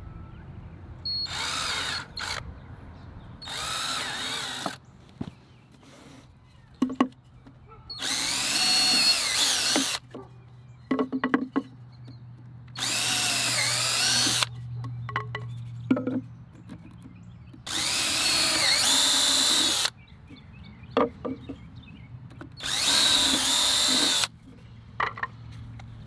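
DeWalt cordless drill pre-drilling pilot holes in small wooden sticks: six short runs of the drill, each one to two seconds long, with knocks of the wood being handled between them.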